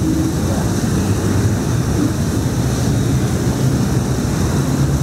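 A vehicle's engine running steadily under loud, even rushing noise, with a low hum.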